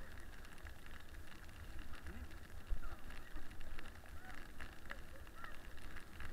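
Toboggan sliding fast over packed snow, a steady rushing noise with low wind buffeting on the microphone, and a few faint short squeaks in the middle.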